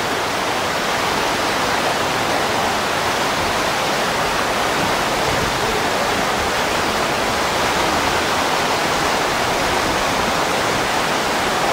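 Steady rush of whitewater rapids on the Brenta river's slalom course.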